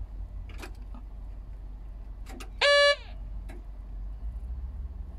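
Ignition key being turned in a Tadano GR-1000EX-4 rough-terrain crane's cab to start it: a few faint clicks, then about halfway through a single loud beep lasting under half a second, over a steady low rumble.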